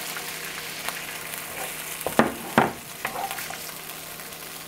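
Pad thai sauce sizzling in a hot nonstick wok with sautéed shallots while being stirred with a wooden spatula. Two sharp knocks come a little over two seconds in.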